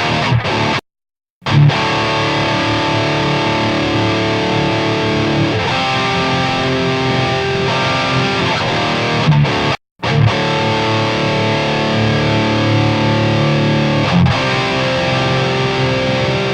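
Distorted electric guitar, a Les Paul through a Marshall JVM410 head and a 4x12 cabinet with Celestion Vintage 30s, playing ringing chords. The sound cuts out completely twice, briefly, about a second in and again near the ten-second mark.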